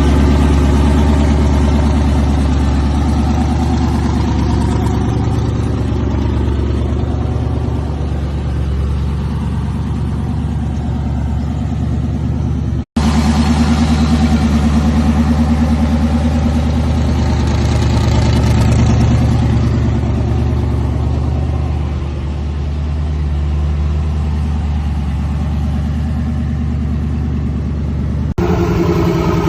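A truck's engine running steadily with a deep, loud exhaust drone. The sound cuts out for an instant about 13 seconds in, and the engine note changes near the end.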